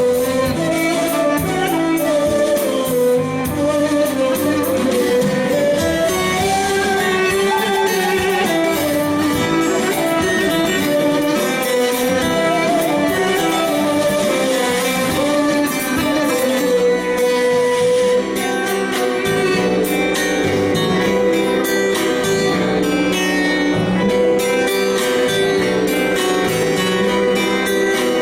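Live Turkish folk music (a türkü) played by a band, with a continuous melody over a steady accompaniment.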